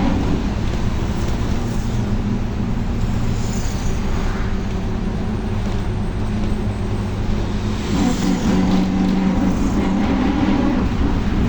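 Volkswagen 17-230 OD bus running on the road with its differential growling loudly: a steady gear whine over the engine and road rumble. The whine is strong at the start, eases off, and comes back strongly about eight seconds in.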